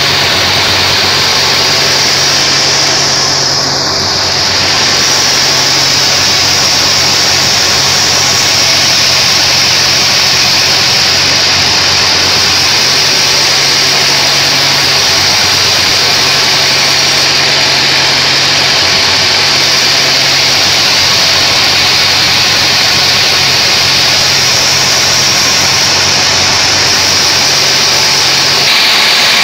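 Homemade band sawmill ripping a mahogany log, blade running through the wood with a loud, steady hiss over the low, even drone of its drive.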